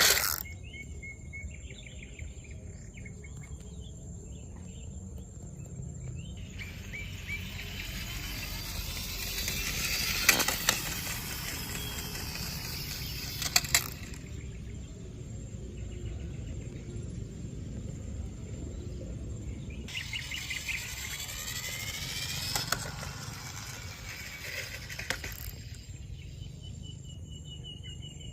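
Small birds chirping with a steady high hiss. In two longer stretches this gives way to a noisy scraping haze with a few sharp clicks.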